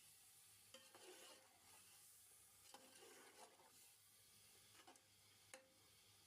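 Faint scrapes of a spoon stirring in a cooking pot, a handful spread a second or two apart, over a faint sizzling hiss.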